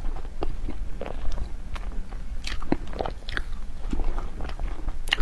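Close-miked chewing of snow-skin mochi (xue mei niang) with cream filling: irregular short mouth clicks, a few every second.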